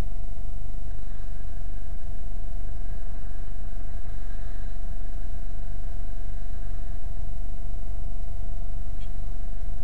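A motorcycle riding through traffic, heard as a steady low rumble of engine and wind on the mounted camera's microphone, with a constant thin whine over it.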